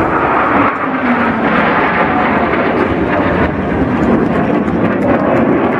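Blue Angels Boeing F/A-18 Hornet jets flying past in formation: loud, steady jet engine noise, its pitch dropping slightly about a second in as they pass.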